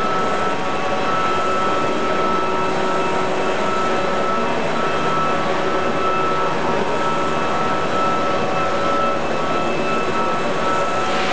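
Radio-controlled scale model helicopter hovering, its motor and rotors making a steady whine that holds an even pitch.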